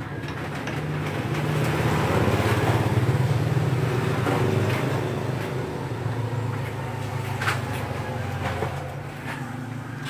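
A vehicle engine running nearby: a low, steady drone that swells about two seconds in and then eases back. A few light clicks as engine parts are handled.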